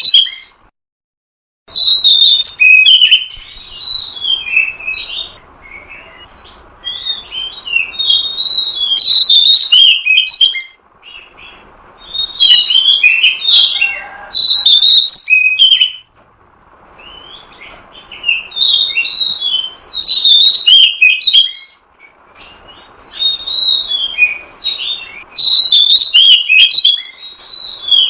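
Oriental magpie-robin song: loud bursts of varied, rapid whistled and chattering phrases, each a few seconds long, repeated with short pauses between them.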